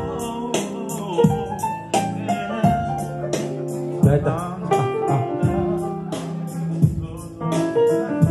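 Live band music: keyboard and acoustic guitar playing over a steady high ticking beat, with a voice singing.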